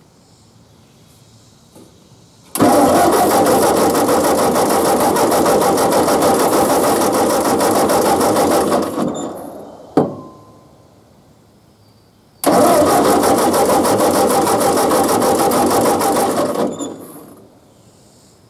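Ford 8N tractor's four-cylinder engine cranked over by its electric starter in two long bursts, about six and four seconds, each winding down as the button is let go. It turns over without catching, a sign of the ignition fault that leaves it with no spark. A single sharp click comes between the bursts.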